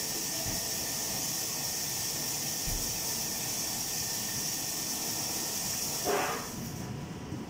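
Garlic and ginger frying in oil in a pan, a steady high sizzle. There is a short clatter about six seconds in, and the sizzle cuts off abruptly soon after.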